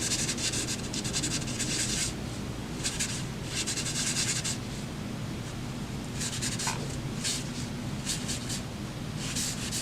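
Graphite shading being smudged and blended on drawing paper by rubbing: a hissing rub made of rapid back-and-forth strokes for about two seconds, then shorter separate strokes every second or so.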